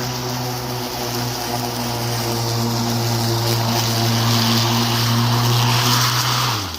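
HART 20V 16-inch cordless electric push mower running, mulching tall, thick grass: a steady motor-and-blade hum with the rush of cut grass over it. Near the end the hum drops in pitch as the blade spins down to a stop.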